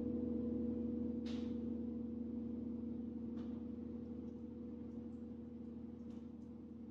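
Large hanging gong ringing out after a single stroke: several steady, overlapping low tones slowly fading away. A faint brief noise sounds about a second in and again about three seconds in.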